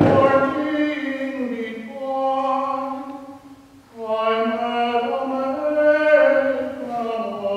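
Mixed choir singing a slow arrangement of a traditional English folk song in held chords, in two phrases with a short breath about three and a half seconds in.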